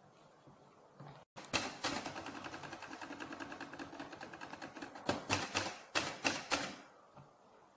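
SM 18 manual typewriter being typed on at speed: a fast, even stream of key strikes, roughly ten a second, starting about a second and a half in. It finishes with a short run of louder, slightly slower strikes, then stops about a second before the end.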